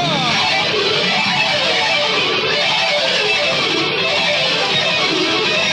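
Electric guitars playing a fast rock passage, a quick run of notes repeated over and over at a steady loud level.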